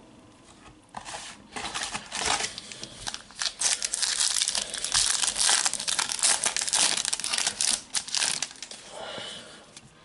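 Foil trading-card packet being torn open and crinkled by hand: a crackling rustle that starts about a second in, grows dense through the middle and thins out near the end.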